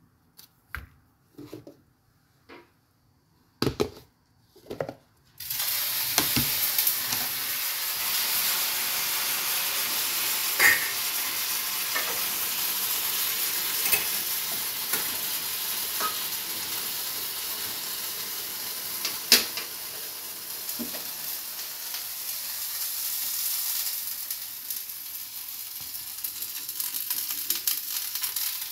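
A few light knocks, then about five seconds in a steady sizzle of food frying in hot oil starts suddenly and keeps going, with scattered pops.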